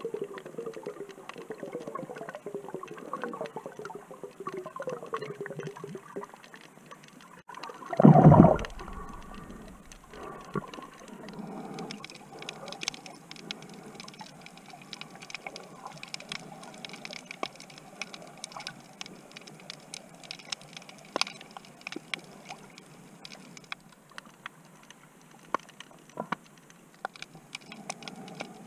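Underwater sound of a snorkeler's camera: gurgling water for the first several seconds, then one loud short rush of water about eight seconds in. After that comes a steady scatter of sharp underwater clicks and crackles.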